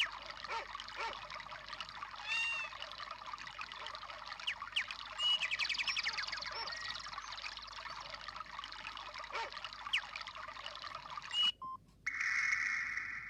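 Samsung SGH-D500 mobile phone playing a nature-sound ringtone through its small speaker: running, trickling water with bird chirps scattered through it. It cuts off near the end, and a different ringtone starts.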